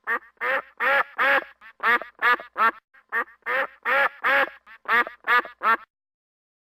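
Duck quacking: a rapid run of a dozen or more short, nasal quacks, a few each second, stopping about six seconds in.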